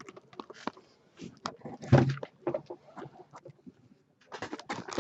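Cardboard trading-card boxes being handled and shifted: scattered taps, knocks and scrapes, loudest about two seconds in.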